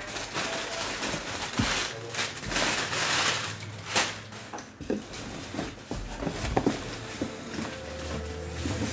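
Cardboard box and packing material rustling and scraping as a boxed football helmet is unpacked by hand. A few sharp knocks and taps follow in the second half.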